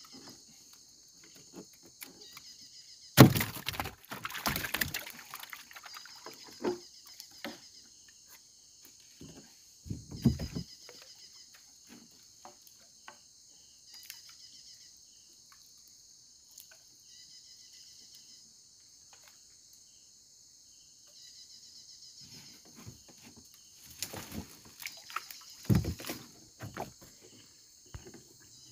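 Steady high chirping chorus of crickets and other insects, with several loud bouts of knocking and splashing: one about three seconds in, another about ten seconds in, and more near the end.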